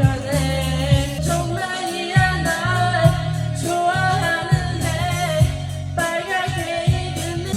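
Pop music with singing over a steady beat and a heavy bass.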